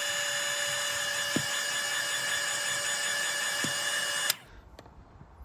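Hot air gun blowing to heat the flex adhesive: a steady hiss with a high whine, cutting off suddenly about four seconds in.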